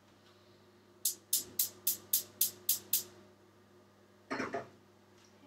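Gas hob spark igniter clicking, eight quick clicks at about four a second as the burner is lit. A short clatter follows a little over a second later.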